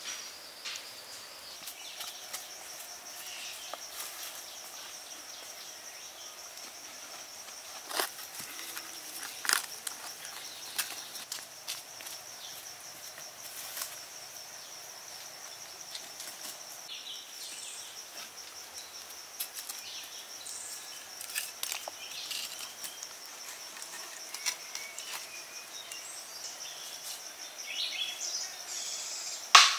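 Insects droning steadily at a high pitch, with scattered sharp clicks and knocks; the loudest knocks come about eight and nine and a half seconds in and right at the end.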